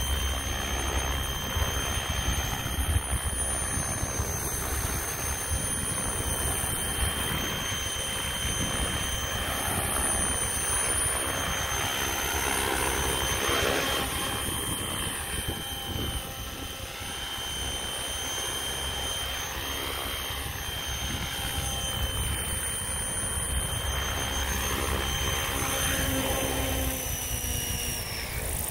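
Hirobo Lepton EX radio-controlled helicopter in flight: the steady high whine of its electric motor and drivetrain with the whir of the rotor blades. Near the end it touches down and the whine falls in pitch as the rotor spools down.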